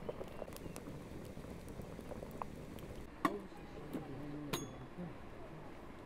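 Large pot of potatoes boiling hard over a wood fire, the water bubbling steadily. Two sharp clinks come a little after three seconds in and again about a second later.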